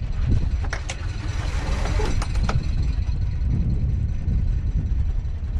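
Sailboat's inboard diesel engine idling in neutral, a steady low rumble. A few sharp clicks and a short hiss come about one to two seconds in.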